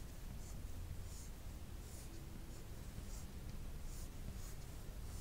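Chalk writing on a chalkboard: a run of short, faint scratching strokes as letters are written.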